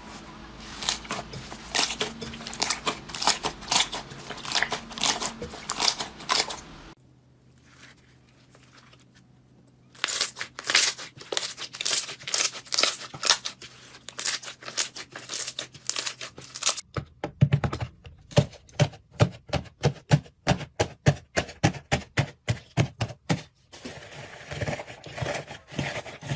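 Slime being squeezed and stretched by hand, giving runs of sharp crackling pops and clicks in several short takes, the last ones a steadier beat of about two to three pops a second.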